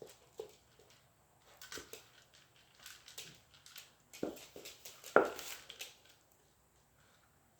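Scattered light knocks, taps and rustles as a puppy scrabbles around a cat toy, with two louder thuds about four and five seconds in, then it goes still.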